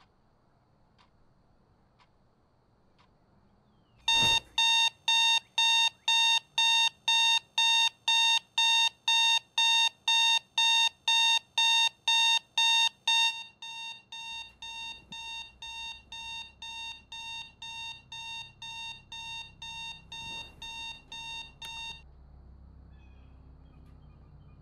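Electronic alarm beeping, about two and a half short high beeps a second, starting about four seconds in. The beeps drop to a lower level about halfway through and cut off near the end.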